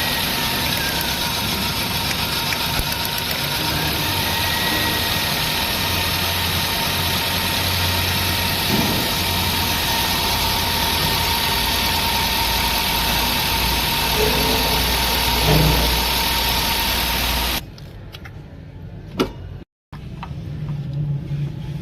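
Toyota Corolla XLi engine idling with a misfire, which the mechanic puts down to a burnt number-one ignition coil. The running sound cuts off suddenly near the end, followed by a click and quieter noises.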